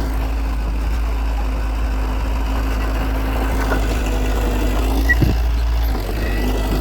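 Heavy diesel engine of earthmoving equipment running steadily with a low rumble and hum, and a brief knock about five seconds in.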